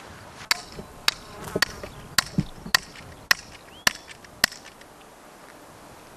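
Eight sharp, ringing strikes of a hand tool at an even pace, a little under two a second, stopping about four and a half seconds in.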